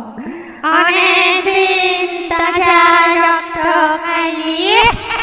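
Eerie high wordless voice, singing or wailing on one held note with a quavering vibrato, coming in loudly about half a second in and sliding upward near the end; a horror sound effect.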